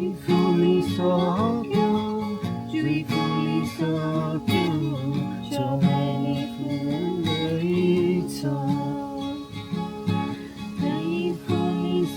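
Acoustic guitar music.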